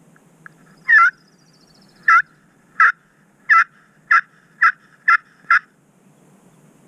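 Knight & Hale Stranglehold slate turkey call worked with a wooden striker, giving a run of eight yelps that come faster toward the end.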